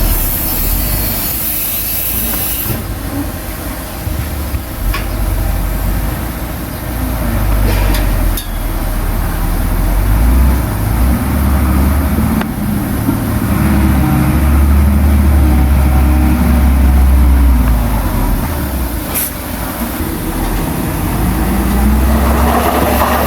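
Heavy diesel earthmoving machinery working: a deep engine running steadily, growing louder under load for a few seconds in the second half. Occasional sharp clanks, and a hiss in the first few seconds.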